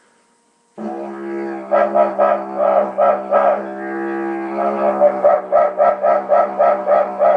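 Didgeridoo starting a steady drone about a second in, with rapid rhythmic yelps voiced over it in two runs, imitating a kookaburra's laughing call; the yelps are made by squeezing the vocal cords while droning.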